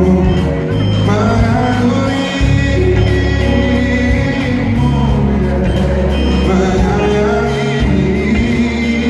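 Live pop ballad performance: a male singer with a band, steady bass and sustained chords, in a large hall.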